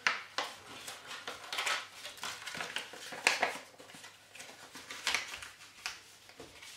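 Paper and small craft pieces being handled on a tabletop: irregular crinkling rustles and light taps.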